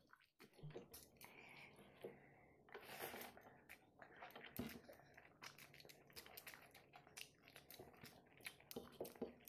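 Faint close-up eating sounds: a person chewing a big mouthful of rice and potato-egg curry, with many irregular small wet mouth clicks and smacks. Fingers mixing soft rice on a plate add soft squishing.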